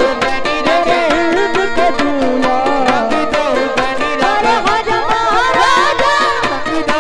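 Qawwali music: a woman's lead voice sings a wavering, ornamented melody over harmonium and a steady hand-drum beat, with a man's voice singing along.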